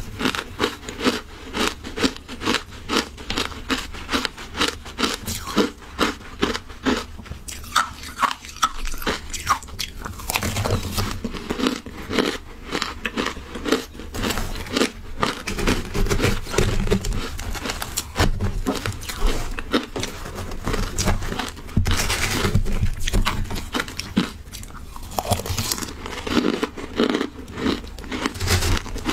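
Close-miked crunching and chewing of shaved ice topped with matcha, the small ice crystals crackling between the teeth in quick, uneven bites throughout.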